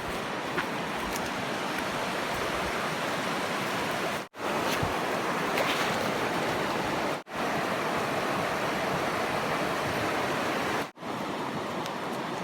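Steady rushing of flowing water, with short breaks where separate clips are joined.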